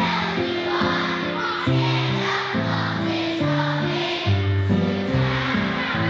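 A group of children singing together, accompanied by an electronic keyboard playing chords that change about every half second to a second.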